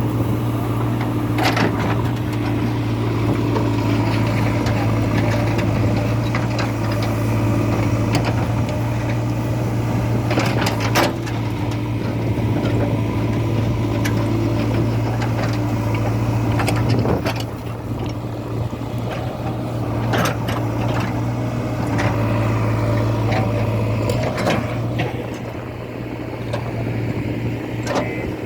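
JCB excavator's diesel engine running steadily under load, easing off a little twice in the second half, with occasional sharp metallic clanks from the working machine.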